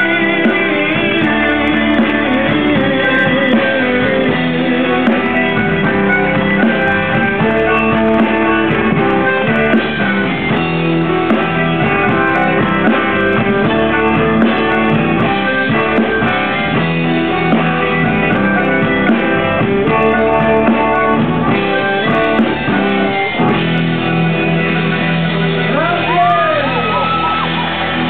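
A band playing live, with singing over guitar.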